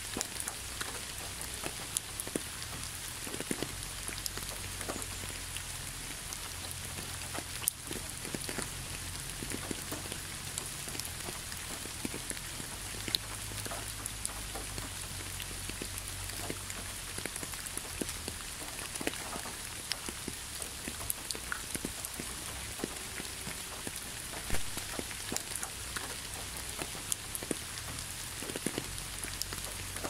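Steady rain: a constant hiss with many separate drops ticking, over a faint low steady rumble.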